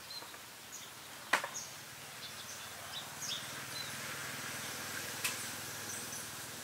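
Rural outdoor ambience with scattered short, high bird chirps, and a sharp click a little over a second in.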